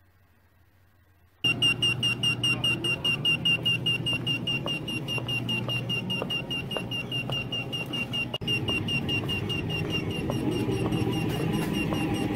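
Restaurant guest pager going off: rapid, repeated high-pitched beeping that starts suddenly about a second and a half in, signalling that the food order is ready.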